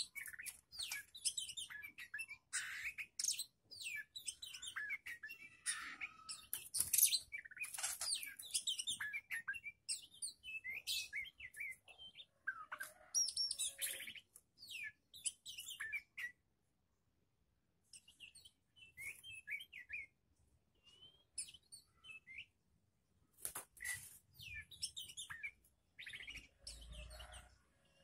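Oriental magpie-robin and other songbirds chirping and whistling in quick, varied calls, busiest in the first half, then a silence of about two seconds and sparser calls after it.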